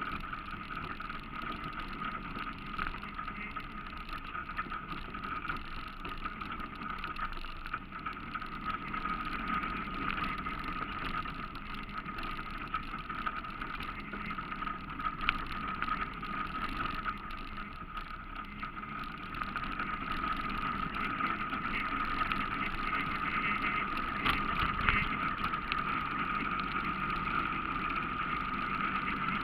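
ATV engine running steadily while riding over a bumpy dirt trail, heard from a camera mounted on the machine's front, with a steady whine and occasional knocks from the bumps. It gets slightly louder about two-thirds of the way through.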